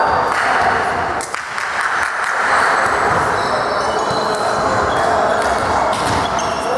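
Indoor volleyball game noise in a reverberant sports hall: steady crowd and player chatter, short high squeaks of shoes on the court floor, and a few sharp knocks of the ball.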